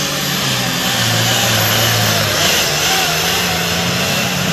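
Limited pro stock pulling tractor's turbocharged diesel engine running flat out under full load as it drags the weight sled, pitch sagging about a second in, then climbing back and holding, with a heavy hiss over the engine note.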